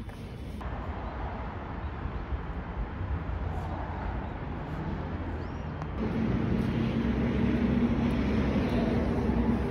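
Street traffic noise: a steady low rumble of passing cars, louder from about six seconds in.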